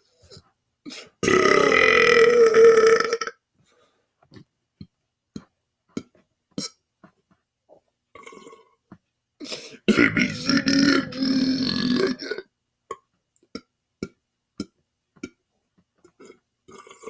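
A man deliberately belching, two long drawn-out burps with a wavering pitch, each about two seconds long: the first about a second in, the second about ten seconds in. Between them come short faint mouth clicks and gulps.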